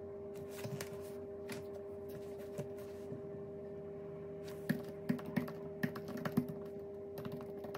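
Typing on a computer keyboard: a few scattered key clicks, then a quick run of clicks over the second half, over a steady faint hum.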